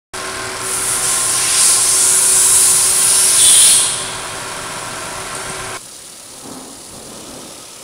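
Portable misting system running: its pump and cooling fan give a steady hum of several tones, under a loud high hiss of water forced out through the mist nozzles. About six seconds in, the sound cuts abruptly to a much fainter hiss.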